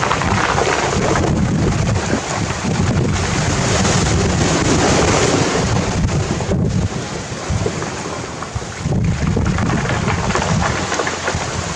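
Sea waves breaking and washing up over a pebble beach in one continuous rush that swells and eases, with wind buffeting the microphone.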